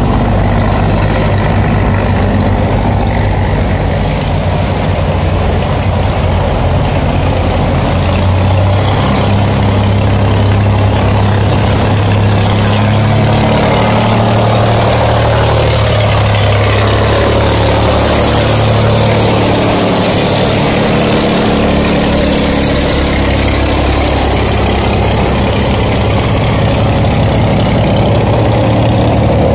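Heavy boat engines running steadily at a low pitch, the note shifting a few times, over the rush of churned river water.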